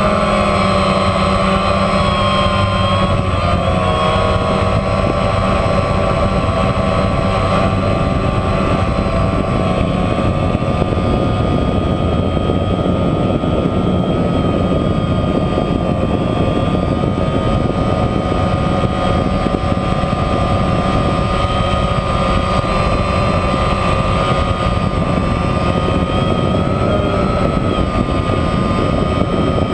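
DJI Phantom quadcopter's four brushless motors and propellers buzzing steadily, recorded from a camera mounted on the drone, with a constant rumble of prop wash under it. The whine wavers slightly in pitch as the drone manoeuvres.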